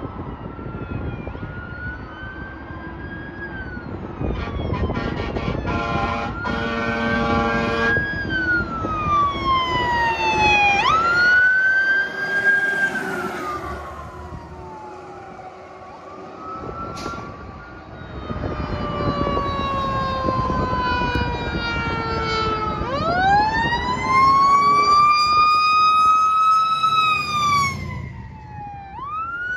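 Fire truck sirens wailing as the trucks drive past, several overlapping tones sweeping up and down over engine and road rumble. A horn blasts for about two seconds around six seconds in. Later a siren sweeps slowly up from low pitch about twenty-three seconds in, holds, and falls away near the end.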